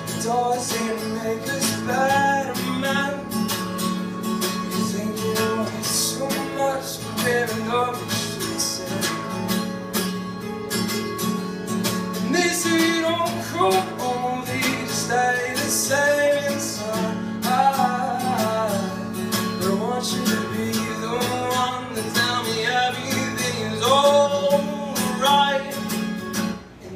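A man singing while strumming an acoustic guitar, a live solo song performance.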